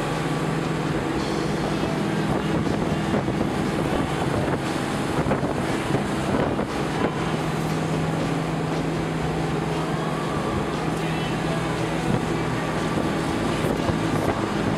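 Nautique ski boat's inboard engine running at a steady towing speed, a constant low hum, with wind buffeting the microphone and the rush of water and spray from the wake.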